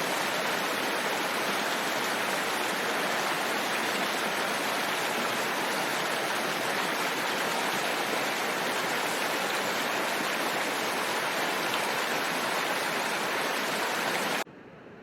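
Steady rushing water, an even dense hiss with no distinct events. Near the end it cuts off abruptly and gives way to a much quieter, thinner steady noise.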